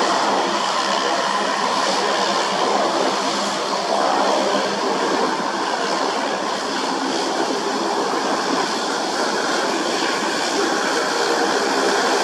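CASA CN-235's two turboprop engines running with the propellers turning as the aircraft taxis, a steady engine and propeller noise.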